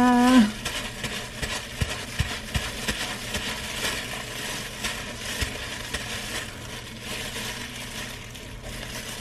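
Wet crackling and squishing of pink hair dye being worked into strands of hair by hand, with scattered small clicks.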